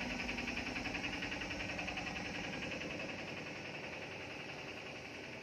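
Engine-driven diesel fuel transfer pump running steadily, pumping fuel into the barge's tank, with a fast, even pulse that slowly grows fainter.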